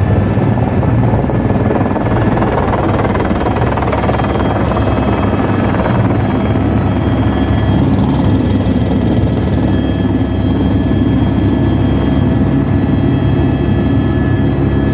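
Helicopter engine and rotor running steadily, heard from inside the cabin: a loud low drone with a steady high whine over it.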